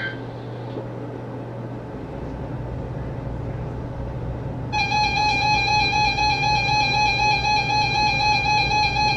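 A short burst of warbling data tones from the tail of an Emergency Alert System SAME header, then a few seconds of radio hiss and hum. About five seconds in, a loud, steady two-tone EAS attention signal begins, with the beating warble of its two close pitches.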